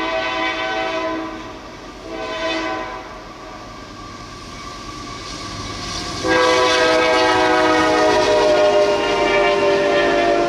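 A train's multi-chime locomotive air horn blows a long blast, then a short blast, then a louder long blast held from about six seconds in. This is the long-short-long ending of a grade-crossing signal. The rumble of the approaching train grows between the blasts.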